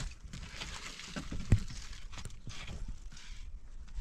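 Wooden poles being lifted and moved, with scattered knocks and scraping of wood on wood and stone, and one sharp knock about one and a half seconds in.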